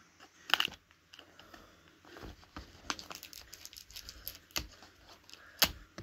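Serrated knife cutting into a cardboard mailer box: a series of short scrapes, taps and cardboard crackles, the sharpest a little after the start and near the end.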